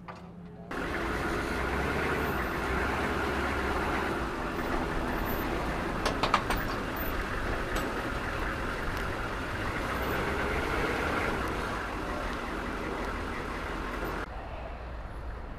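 A Humvee's diesel engine running steadily. It starts abruptly about a second in and cuts off near the end, with a few sharp metal clanks about six seconds in.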